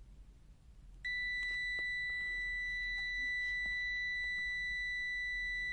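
LOMVUM DM6S multimeter's continuity beeper sounding a steady high-pitched tone. It starts about a second in, when the shorted probe tips read 0 ohms and show continuity.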